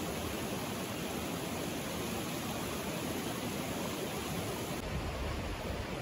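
Steady rush of a shallow mountain stream flowing over rocks. The sound shifts about five seconds in, with more low rumble.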